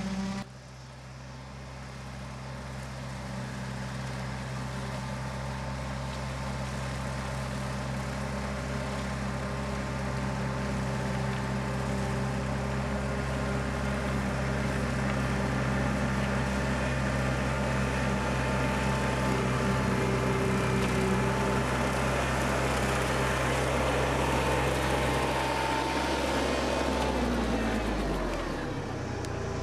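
Kubota loader tractor's diesel engine running steadily under load while it mows tall grass, growing louder as it approaches. Near the end its pitch drops as it passes by.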